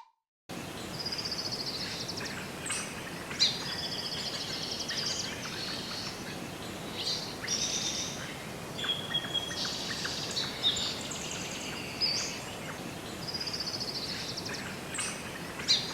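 Bird-chorus ambience from a GarageBand Animal Kingdom live-loop sound cell: several birds chirping and trilling over a steady outdoor hiss, starting about half a second in.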